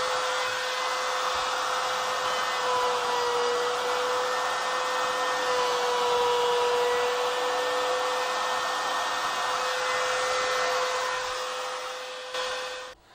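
Laminate trimmer with an offset base running at full speed, a steady high whine, its bit trimming protruding wooden screw-hole plugs flush with the surface. Near the end the sound fades away.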